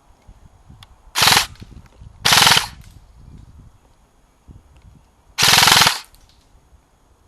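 Airsoft gun firing three rapid full-auto bursts: a short one about a second in, a slightly longer one a second later, and a third, about half a second long, near the end.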